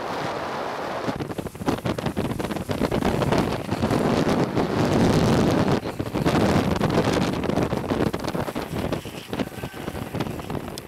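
Wind rushing over the microphone at downhill longboarding speed, over the rolling rumble of urethane skateboard wheels on asphalt, with many small clicks and knocks; loudest in the middle, easing toward the end.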